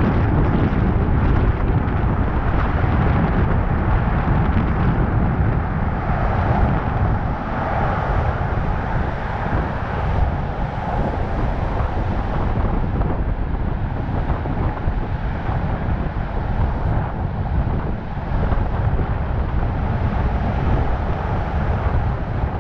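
Steady wind rushing over the microphone of a camera mounted on the outside of a moving vehicle, over continuous low road and engine noise from the drive.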